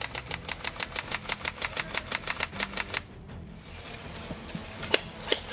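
Airsoft rifles firing on full auto: an even stream of sharp clicking shots at about eight a second that stops about three seconds in. A few more shots follow near the end.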